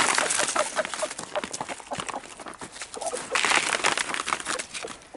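Hens clucking softly with short, repeated calls, over scratchy clicks and two louder rustling bursts, one at the start and one about three and a half seconds in.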